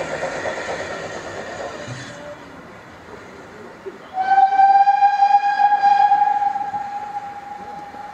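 Small tank steam locomotive pulling away, its exhaust chuffing in quick beats that fade over the first couple of seconds. About four seconds in, a steam whistle sounds one long steady note for roughly three seconds.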